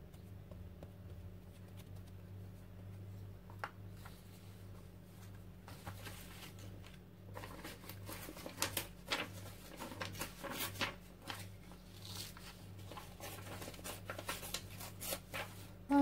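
Paper scraps torn from old printed book pages being handled and torn by hand, a dense crackling rustle through the second half. Before that only a steady low hum with a single click.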